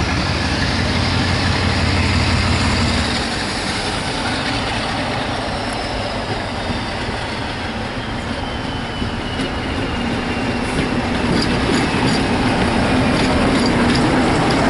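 Diesel locomotive running past close by, its engine note strong at first and a whine falling in pitch as it goes by. Then passenger coaches roll past with rail-joint clicks and a rising rumble.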